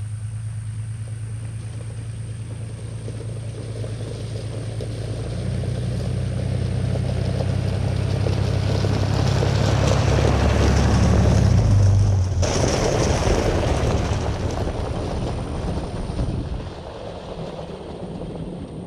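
A vehicle's engine and tyres running while driving a dirt forest road: a steady low engine hum with road noise that builds until about twelve seconds in, then drops off sharply.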